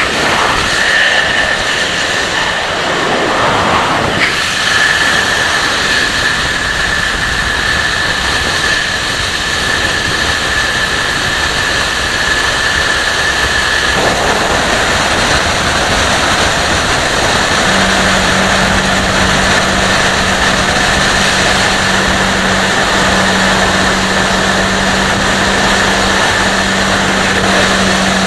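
Wind rushing over the microphone, with tyre and engine noise from a motorcycle cruising at speed. The sound changes abruptly about halfway through, and from there on a steady engine drone at constant speed comes through.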